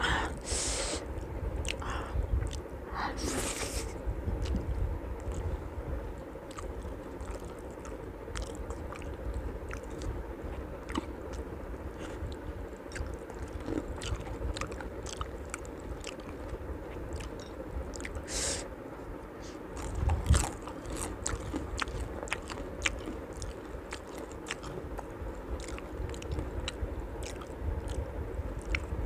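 Close-miked chewing and wet mouth sounds of someone eating puri and rice by hand, with many small clicks and a few sharper smacking or slurping sounds. There is a low bump about two-thirds through.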